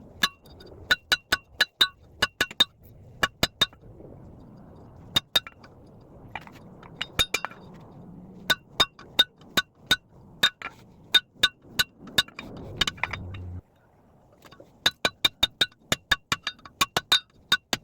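Hammer blows on steel over an anvil, each strike ringing with a bright, metallic tone. The blows come in runs of a few to a dozen at about three a second, with short pauses between. A low background hum stops suddenly about three-quarters of the way through.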